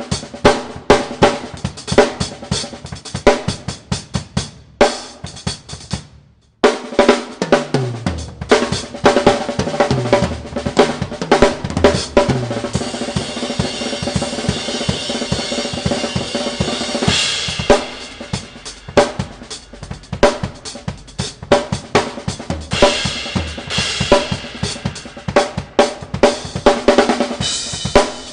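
Drum kit played in a fast improvised solo: dense snare, bass drum and hi-hat strokes. About six seconds in there is a brief stop, then low pitched drum hits and a long stretch of ringing cymbal wash.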